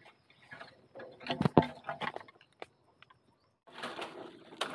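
Irregular crackling and rustling of dry bamboo litter and brush, with a few heavier knocks about a second and a half in. The sound breaks off briefly about three seconds in, then comes back as a denser rustle.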